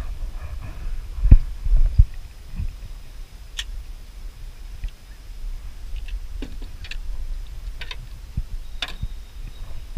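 Scattered knocks and clicks of a fishing rod and gear being handled in a small boat, over a steady low rumble. The loudest knocks come about a second and two seconds in, with sharp clicks later on.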